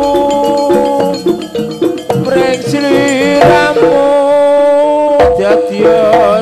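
Live jaranan accompaniment: a Javanese ensemble with hand drumming under a loud, held melodic line that moves in steps and wavers in places.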